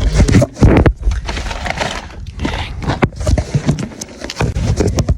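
Handling noise on the camera's own microphone as the camera is moved and re-angled: an irregular run of knocks, bumps and scraping rubs.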